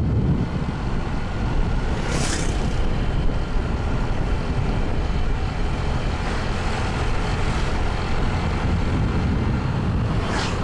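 Motorbike riding along a road: its engine and wind on the microphone make a steady rumble, with two brief hissing swells, about two seconds in and again near the end.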